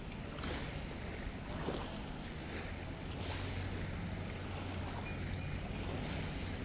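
A jet ski's engine idles with a steady low hum. Small waves slap and swish against it about three times.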